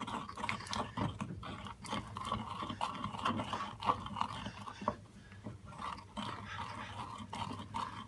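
Pestle grinding and scraping liquid chocolate round a mortar in repeated irregular strokes: conching, the stage that coats the cocoa particles in fat.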